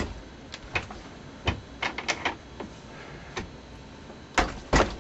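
Irregular metal clicks and knocks from a reloading press and its die being handled and turned while a lead bullet is swaged, about ten in all, the loudest at the start and near the end.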